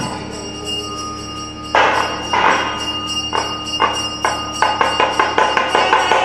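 Temple bell rung for the arati: a lingering ringing tone, then from about two seconds in a run of strokes that come faster and faster.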